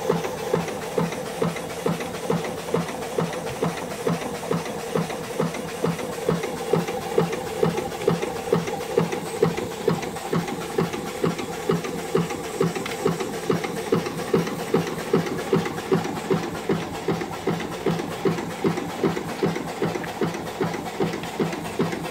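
Small antique steam engine running steadily, its exhaust beating about twice a second over a steady hiss of steam. It is belt-driving a car alternator that is charging at 14.6 volts.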